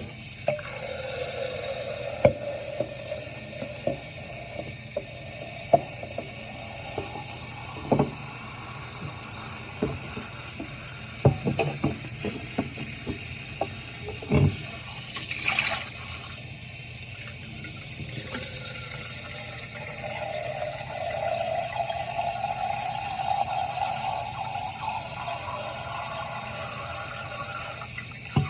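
Tap water running into a sink as a bottle is rinsed out. The water hisses steadily, now and then filling the bottle, and the bottle knocks sharply against the sink or tap several times.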